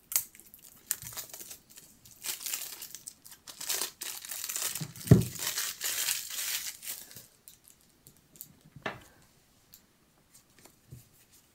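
Cellophane wrapping being torn and peeled off a deck of playing cards, crinkling for about seven seconds, with a sharp thump about five seconds in that is the loudest sound. After that come only a few quiet handling sounds as the cards are picked up.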